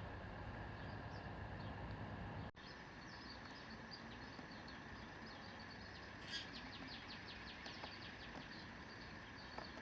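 Faint background ambience with scattered high bird chirps, including a quick run of chirps about six seconds in.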